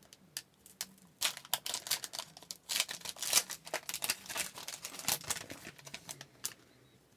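Trading card pack wrapper crinkling and tearing open, with irregular crackly rustling as the cards are handled.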